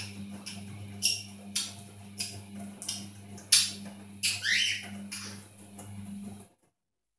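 Pyrrhura conure chattering: a string of short, harsh squawks and chirps, the loudest about three and a half seconds in, with one gliding call just after, over a steady low hum. The sound cuts off about six and a half seconds in.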